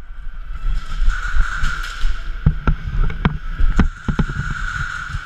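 Movement noise of an airsoft player advancing through a plywood close-quarters course: low rumbling steps and gear handling over a steady background hum, with a run of irregular sharp clicks and knocks in the second half.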